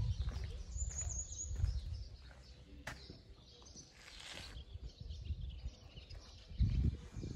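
Footsteps on a cobblestone lane, heard as low thuds with the loudest near the end, and a bird giving a short high chirp about a second in over a faint outdoor background.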